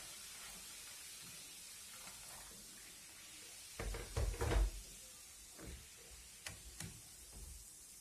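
Hot water pouring into a plastic bowl as a steady hiss for the first few seconds, then a cluster of loud clunks about four seconds in as the glass electric kettle is put down on the counter. Several lighter knocks follow as the metal teapot is handled in the bowl.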